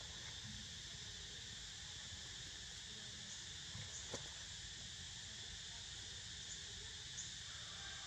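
Steady, unbroken drone of cicadas in the forest, with a single faint click about halfway through.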